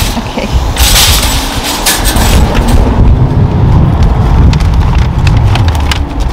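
Loud low rumble of wind buffeting the microphone, with a rush of hissing noise about a second in. Scattered clicks and rustles follow as grocery bags are lifted out of a shopping cart.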